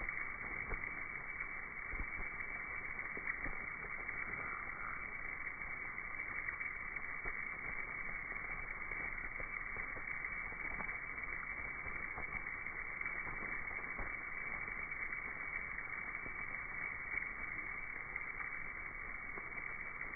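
Steady rushing noise of a swarm of bats streaming out of a cave, slowed down with the slow-motion footage so it sounds low and muffled, with faint scattered ticks.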